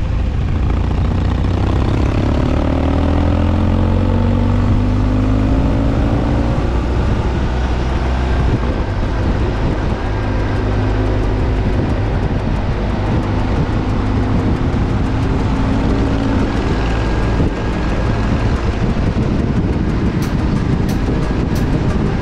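BMW R100GS PD's air-cooled boxer twin running under way, heard from the rider's seat with steady wind rush over it. The engine note rises over the first few seconds as the bike accelerates, then holds fairly steady at cruising speed.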